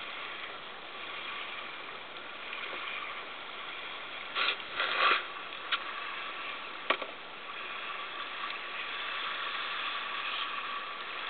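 Kayak paddles knocking and clattering against the hull a few times, about four to seven seconds in, over a steady hiss.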